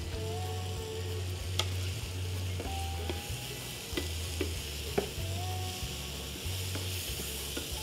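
Food sizzling in a pan on the stove while being stirred, with a few sharp clicks of a utensil against a stainless steel pan.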